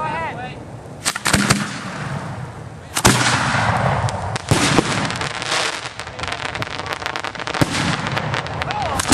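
Fireworks going off: several sharp bangs a few seconds apart with dense crackling between them, and whistles that rise and fall at the start and again near the end.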